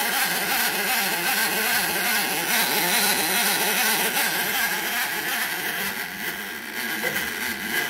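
Loud, steady machine noise, like a small engine or pump running, with a wavering rattle underneath.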